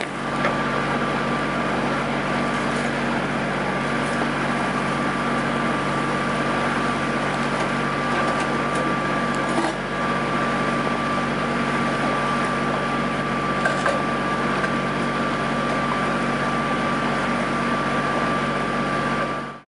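Steady mechanical drone with a constant hum running under an even noise, ending abruptly.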